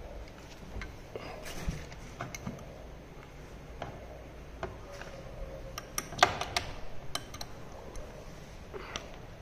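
Hand screwdrivers working screws while a metal TV stand leg is fitted to the back of a TV, giving scattered small clicks and clinks, with a quick flurry of sharp clicks a little past the middle.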